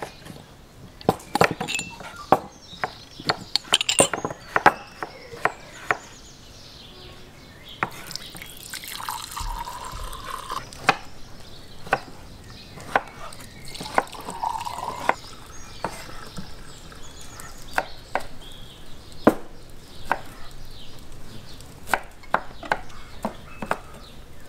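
Red Saperavi wine being poured into glasses, twice: about eight seconds in and again about fourteen seconds in. Sharp knocks and clicks come throughout.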